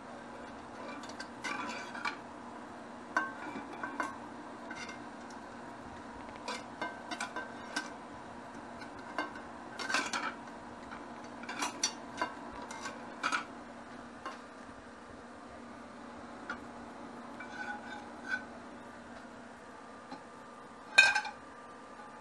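Metal spoon and spatula clinking and scraping against a frying pan of hot oil: irregular short clinks over a steady low hum, with one loud clank near the end.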